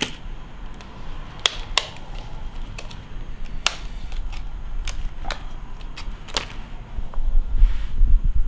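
A plastic soft-plastic lure packet being handled and opened by hand: scattered sharp clicks and crinkles about a second apart. A few low bumps near the end are the loudest part.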